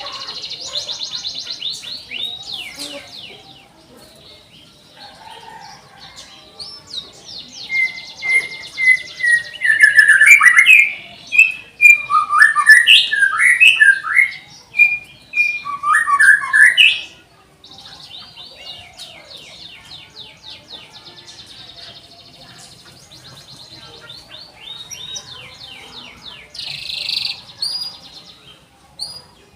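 Domestic canary singing: long, rapid high trills, then a loud run of warbling, sweeping phrases in the middle, then long trills again.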